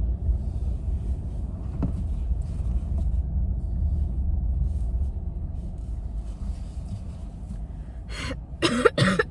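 Low car rumble heard from inside the cabin, fading away about halfway through. Near the end come a few short, breathy vocal sounds.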